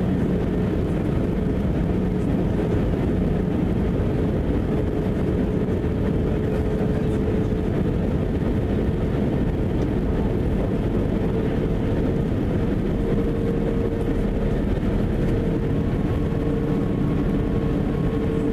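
Airbus A319 cabin noise by the wing: a steady jet engine drone and airflow rush, with a held engine tone that shifts slightly higher about two thirds of the way through.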